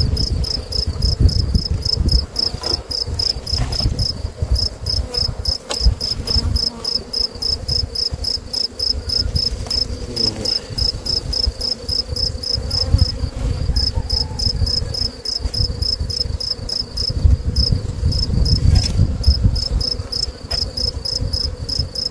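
A cricket chirps steadily in high, even pulses about four times a second, with honeybees buzzing around the open hive. Under it is a low rumble, and a few short knocks come from the hive boxes being handled.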